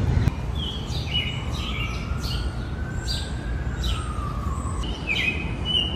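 Small birds chirping in short repeated notes over a steady low city hum. A faint long tone rises slowly and then falls through the middle.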